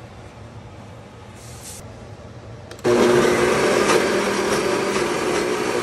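Ninja countertop blender's motor starts abruptly about three seconds in and runs loud and steady, blending a spice and tomato mixture, after a low steady hum.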